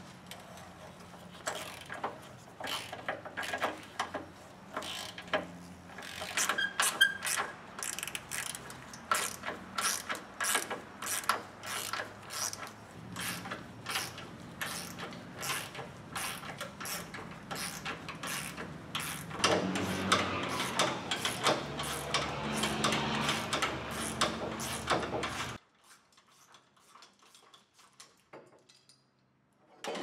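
A hand socket ratchet clicks in quick runs as 15 mm sway bar bracket bolts are backed out. The clicking gets denser and louder, then cuts off suddenly a few seconds before the end.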